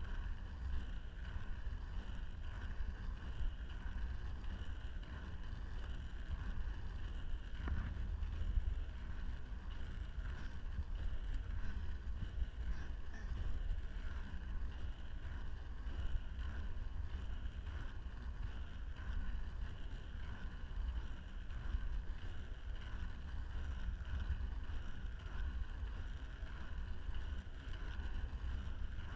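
Steady rolling noise of inline skate wheels on asphalt under a low wind rumble on the microphone, with one brief click about eight seconds in.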